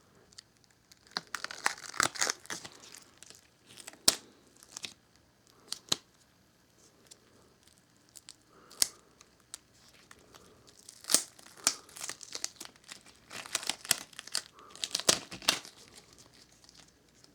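Irregular crinkling and rustling handling noise, broken by scattered sharp clicks and taps, with clusters of rustles around the middle and near the end.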